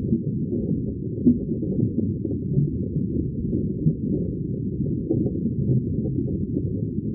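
Underwater ambience: a steady, muffled low rumble with irregular soft bubbling pops.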